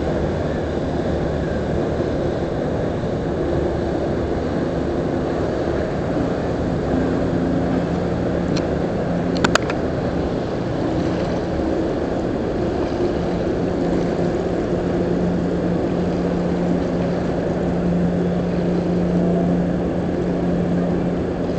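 MS Oosterdam cruise ship passing close by, its machinery giving a steady low rumble with a deep hum that grows stronger in the second half. A brief sharp ping sounds about halfway through.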